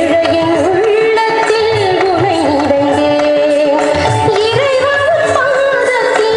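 A hymn: a sung melody with instrumental accompaniment over a steady drum beat.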